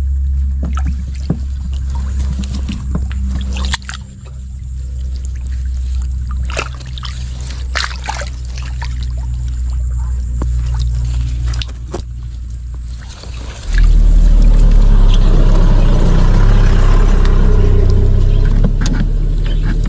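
Water splashing and dripping as hands grope through shallow muddy water among weeds, with short sharp splashes, over a steady low motor drone. About fourteen seconds in, the drone and a rougher rushing noise become abruptly louder.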